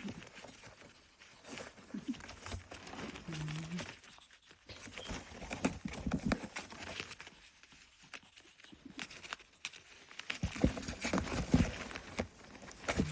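A ferret's open-mouthed gasping 'giggle': runs of quick soft huffs and clicks with short pauses between them, busiest near the end.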